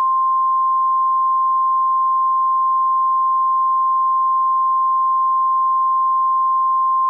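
A single steady electronic beep at one pitch, held without a break: a 1 kHz broadcast test tone of the kind a TV channel plays when it is off the air.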